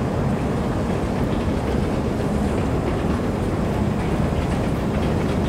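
Long metro-station escalator running during a ride down: a steady low rumble of the moving steps and drive, with faint clicking.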